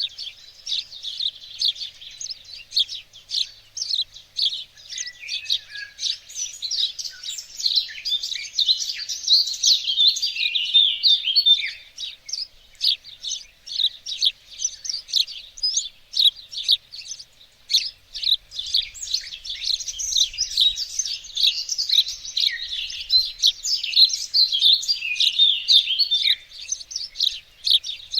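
Several small songbirds singing and chirping together in a steady chorus of quick, high twitters and trills.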